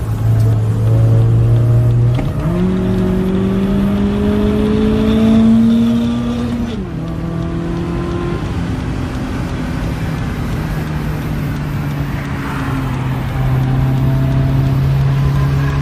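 BMW M42 1.8-litre four-cylinder engine heard from inside the car on track. The revs jump up about two seconds in and climb steadily under acceleration. A little before halfway they fall sharply at a gear change, then hold steady.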